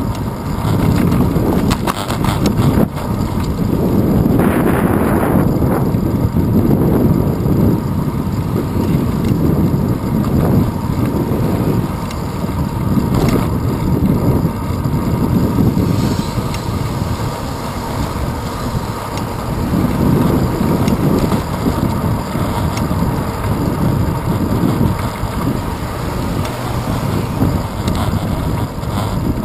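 Wind buffeting the microphone of a handlebar-mounted GoPro on a moving bicycle, a loud, gusting low rumble with road noise underneath. There are a few sharp knocks about two seconds in as the bike rolls over a railroad crossing.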